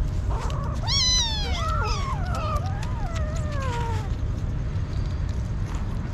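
Several hungry kittens meowing, a run of overlapping high calls that mostly fall in pitch, over the first four seconds. After that come faint small clicks of the kittens eating wet food, with a steady low rumble underneath throughout.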